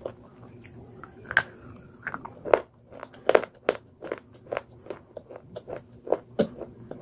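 Biting and chewing a brittle slate bar: a run of sharp, irregular crunching cracks, loudest a little before the middle.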